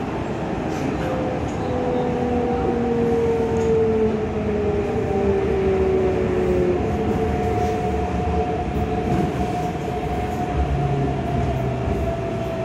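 Running noise inside a Keikyu 600 series electric train car: a steady rumble of wheels and body. Over it, a motor whine falls slowly in pitch, as the train slows.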